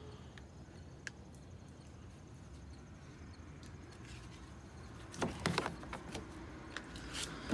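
Quiet background with a faint, evenly pulsing insect chirr, broken a little past halfway by a short cluster of knocks and clicks, with a few more near the end, from someone moving about inside a van.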